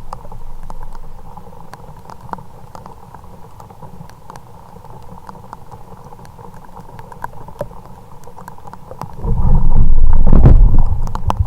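Kayak on the water in the rain: a steady low wash with scattered small ticks of raindrops, and a faint steady hum. About nine seconds in, a loud low rumble lasts for about two seconds.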